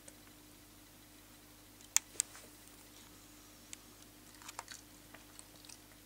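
A resting dog's mouth making short, sharp clicks and smacks, like small chewing or lip-licking sounds. The two loudest come close together about two seconds in, with softer ones scattered through the second half. A faint steady hum sits underneath.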